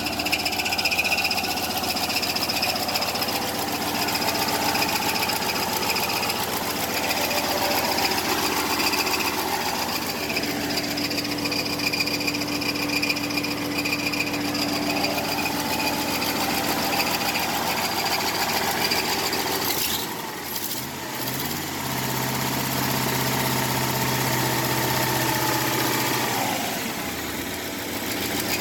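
GM truck V8 engine running steadily, freshly freed by hand after seizing from oil loss. About twenty seconds in its note dips briefly and settles at a different pitch.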